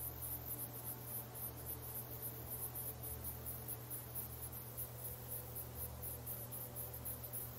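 Faint background ambience: a steady, high-pitched chirping that pulses several times a second, over a low hum.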